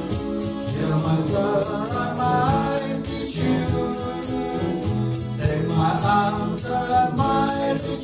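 Live acoustic band music: two guitars, a tambourine keeping a steady beat of about three strikes a second, and a voice singing the melody in two phrases.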